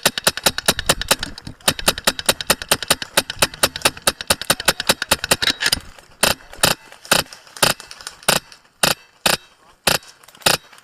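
Airsoft guns firing: a fast stream of shots, about ten a second, for roughly the first six seconds. After that come slower single shots, about two to three a second.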